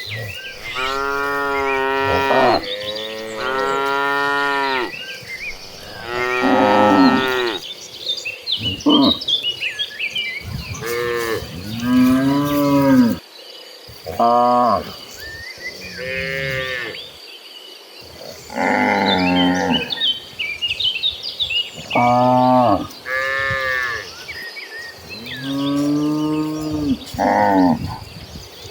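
A herd of cattle mooing again and again, about a dozen long calls from several animals, some deep and some higher-pitched, one after another and sometimes overlapping. A faint steady high insect drone runs underneath.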